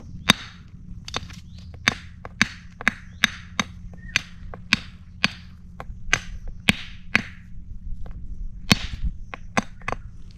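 Stones knocking sharply against one another, about two clacks a second with a short pause late on, as rocks are gathered for use as handline sinkers. A steady low hum runs underneath.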